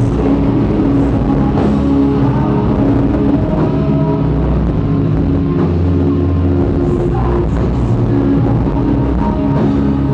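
Live rock band playing loud and steady: sustained distorted guitar chords over bass and drums, heard through the hall from the audience.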